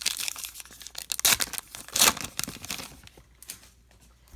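A baseball card pack wrapper being torn open and crinkled: a run of sharp rips, the loudest about one and two seconds in, that dies down after about three seconds.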